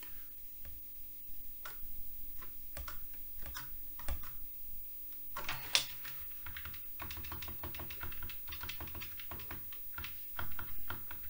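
Keys on a Commodore Plus/4 keyboard clicking: scattered clicks at first, then a quicker run of keystrokes from about halfway.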